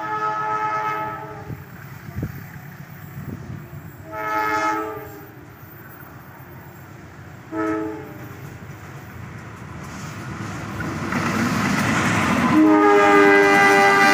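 Locomotive air horn sounding several times as a passenger train approaches: a blast ending about a second in, another around four seconds, a short toot near eight seconds, then a long loud blast near the end. The rumble of the approaching train grows just before the last blast.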